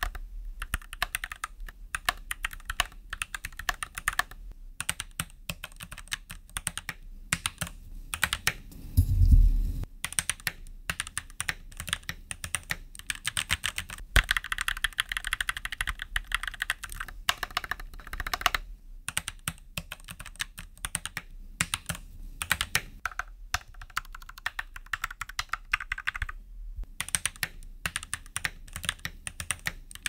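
Fast typing on a stock Keychron C1 mechanical keyboard with Gateron Red linear switches: a dense run of key clacks, the board not yet sound-dampened. A deep thump about nine seconds in is the loudest sound.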